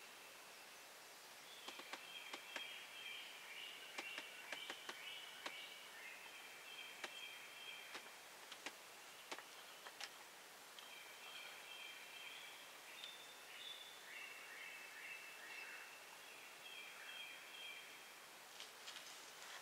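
Faint high chirping of woodland birds in phrases of a second or two, with several sharp clicks scattered among them.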